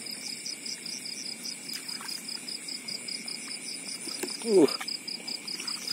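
Night insects, crickets, chirping in a fast, even pulse over a steady high hum of other insects. About four and a half seconds in, a person gives one short exclamation that falls steeply in pitch.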